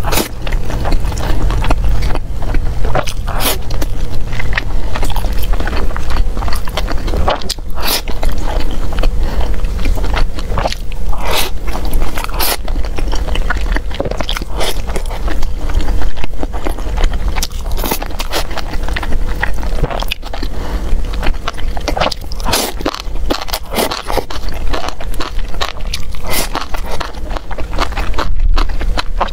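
Close-miked eating sounds: chewing mouthfuls of rice and saucy food, with wooden chopsticks clicking and scraping against a plastic takeout box at irregular moments.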